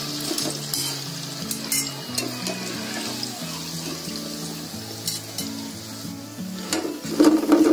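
Wheat-flour karanjis frying in hot oil in a small steel kadhai, with a steady sizzle. A few sharp metal clinks come as a wire spider skimmer stirs and lifts them out, and there is a louder clatter near the end.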